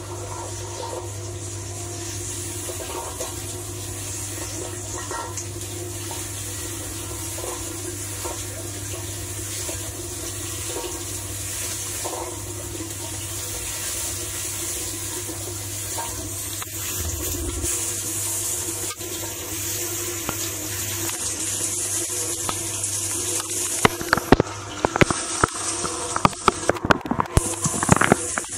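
Water spraying and splashing inside a Candy Duo 609 X dishwasher during its wash cycle, over the steady hum of the circulation pump. The spray gets louder after about sixteen seconds in, and near the end a rapid run of sharp hits breaks through.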